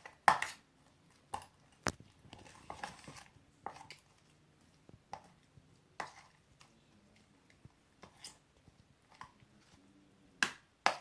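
Utensil stirring a sticky glue slime mixture in a bowl, making irregular sharp clicks and short scrapes against the bowl, with a louder pair of knocks near the end.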